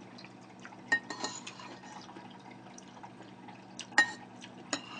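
A metal spoon clinking against a plate while scooping up soup broth: a few light ringing clinks, the sharpest about a second in and about four seconds in, with small wet scraping sounds between.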